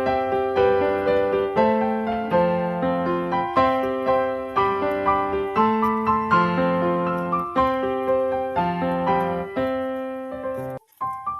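Background music: piano playing a melody over chords, about two notes a second, cutting out briefly near the end.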